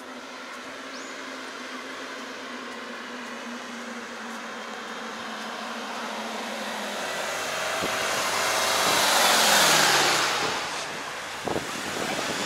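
A motor vehicle approaching and passing close by: engine hum and tyre noise build to a peak about nine or ten seconds in, then fade as the engine's pitch drops.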